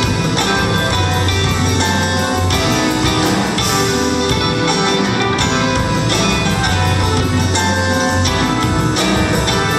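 Instrumental music from a show band's pop-folk song, a passage without vocals over a sustained bass line.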